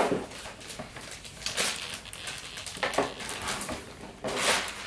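Small plastic toy pieces clicking and knocking against a plastic toy playset and play table, a few separate clacks with a small cluster near the end.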